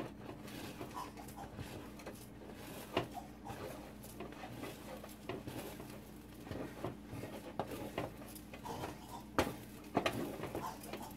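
A person coughing several times after eating dry corn flour, over a wooden spoon scraping and knocking in a stainless steel saucepan as stiff fufu dough is stirred.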